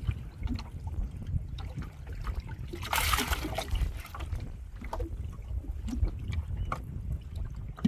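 Water sloshing and trickling around a small boat, with one brief splash about three seconds in, over a steady low rumble.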